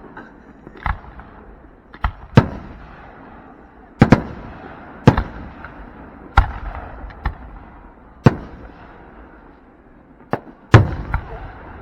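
Aerial fireworks shells bursting overhead: about ten sharp booms at irregular intervals, each trailing off briefly, with the loudest pair close together near the end.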